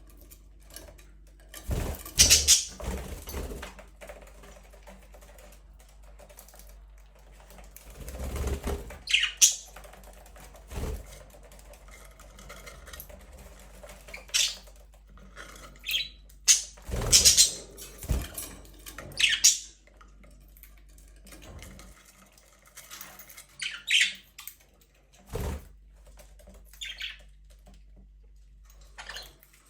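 Budgerigars in an aviary giving short, scattered chirps and squawks, with a few sharp knocks among them.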